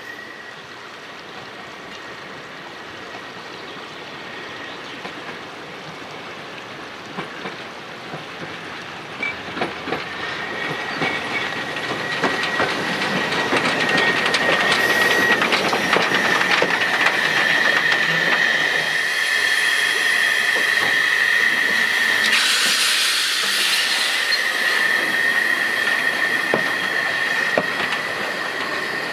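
A 750 mm narrow-gauge steam train, a Saxon IV K locomotive with coaches, passes close by, getting louder as it comes up. Its wheels squeal in a steady high tone and rail joints click. About two-thirds of the way through comes a brief burst of steam hiss.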